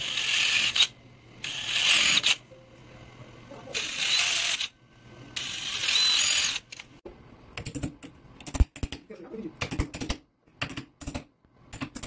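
DeWalt DCD796 cordless drill running in four short bursts, drilling small pilot holes through the lock's metal faceplate into the door edge. From about seven seconds in, a string of irregular sharp taps and scrapes as a chisel is worked into the wood around the plate.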